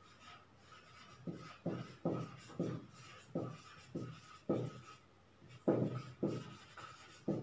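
Marker pen writing on a whiteboard: about a dozen short strokes, roughly two a second, each dropping in pitch, the loudest near the six-second mark.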